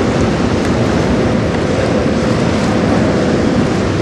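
Wind buffeting the microphone over a steady wash of choppy river water.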